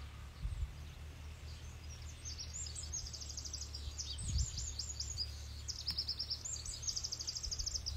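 A songbird singing fast repeated high trills and chirps from about two seconds in, over a steady low rumble, with a couple of soft low thumps.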